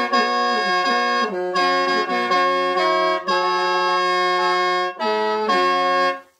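Lao khaen, a bamboo free-reed mouth organ, playing a melody over steady drone notes with several pipes sounding at once. There is a short break about five seconds in, and the playing stops just before the end.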